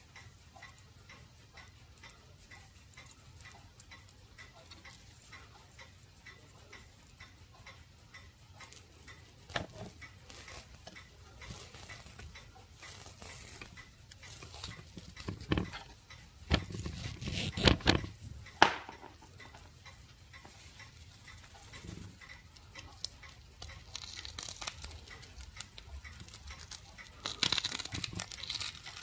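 Handling noise from a cut-open immersion heater tube worked between the fingers: small clicks and scrapes, with a cluster of louder knocks and rustles about halfway through. Near the end comes a scratchy scraping as a thin tool is pushed into the sand-like powder in the tube end. A faint regular ticking runs under the first part.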